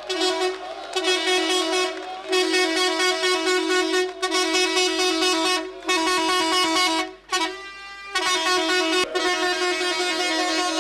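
A vehicle horn blaring in a string of long blasts, each held for a second or two, with short breaks between them.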